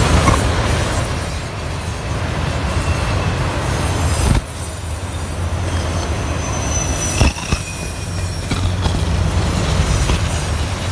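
Canadian Pacific freight train rolling past, its wheels making a steady rumble on the rails with a faint thin high wheel squeal. There are two sharp clanks, about four and seven seconds in.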